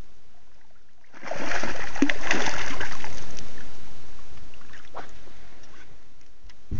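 A hooked bass thrashing and splashing at the water's surface for about two seconds, then fading; a sharp, dull thump near the end.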